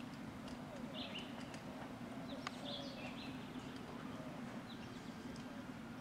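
Faint birdsong: a bird giving short chirping calls every second or two, over a steady low hum.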